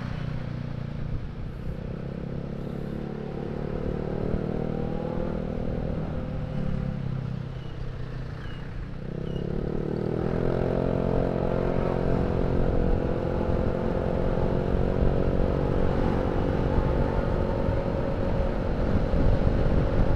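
Automatic scooter running through a cheap aftermarket racing silencer while riding, with wind rumbling on the microphone. Around nine seconds in the engine note dips, then picks up to a higher pitch and climbs slowly as the scooter accelerates. The rider finds the silencer's note a little cracked when pushed hard.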